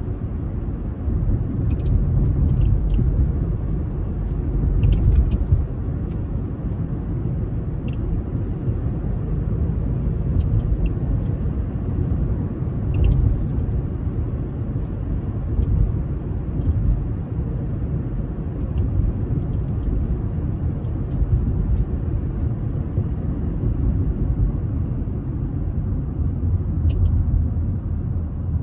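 Steady low rumble of car and road noise, rising and falling a little, with faint light clicks now and then.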